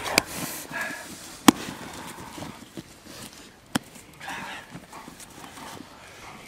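Three sharp cracks of a protection-training helper's stick: a light one just after the start, the loudest about a second and a half in, and another near four seconds.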